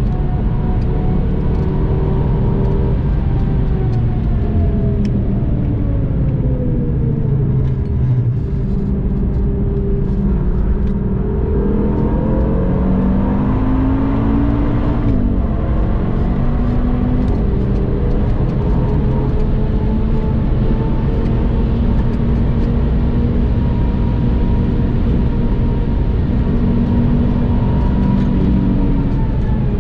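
A tuned 2013 Audi TT RS's turbocharged 2.5-litre five-cylinder engine, heard from inside the cabin. The engine note falls as the car brakes hard from high speed for a corner, then climbs sharply under full throttle out of it. It dips once at an upshift about halfway through, and holds a high steady pitch at speed near the end, over road and wind noise.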